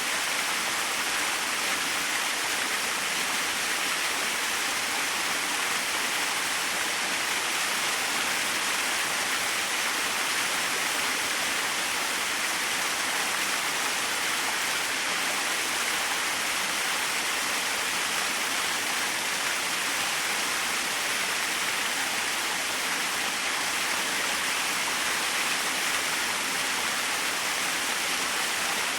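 Small waterfall splashing steadily, an even rushing hiss of falling water with no change in level.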